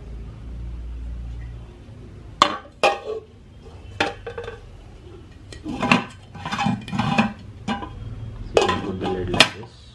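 Metal-rimmed glass lid being set on and moved around a non-stick kadai, clinking and knocking against the pan several times, with handling noise between the knocks.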